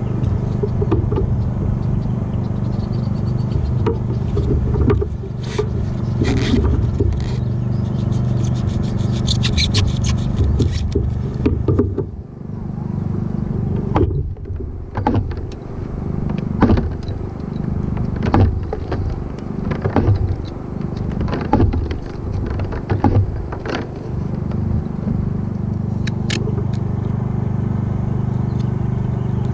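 Handling noises from a fiber cable coil and a roll of tape in a plastic kayak: scattered clicks, knocks and scrapes, with a rapid crackle from about eight to eleven seconds in. All of it sits over a steady low rumble.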